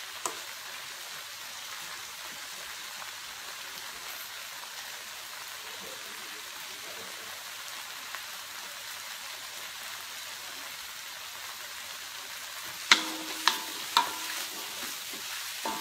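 Pounded dried-chili, shallot and dried-shrimp paste sizzling steadily in oil in a wok, being fried until a little crisp. Near the end a wooden spatula knocks and scrapes against the wok a few times as the paste is stirred.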